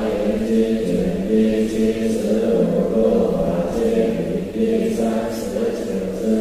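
Voices chanting in unison in a temple, a low, steady recitation that swings between two notes about once a second.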